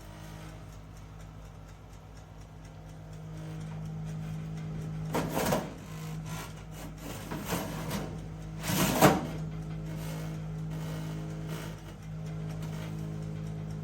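Convection toaster oven running with its fan humming steadily, a little louder from about three and a half seconds in. Two brief louder noises cut across it about five and nine seconds in.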